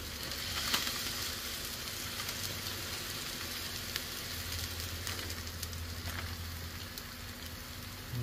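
Sausage patties sizzling steadily on a hot flat-top griddle as they fry in their own fat, with a couple of faint clicks.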